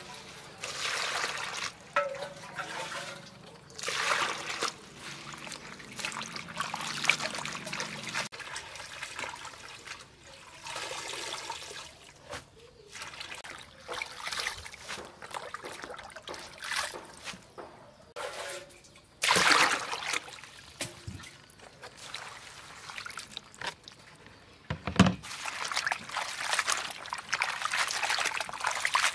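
Water splashing and sloshing in a plastic basin in repeated bursts as hands rub and rinse leafy greens, with a sharper splash a little past the middle.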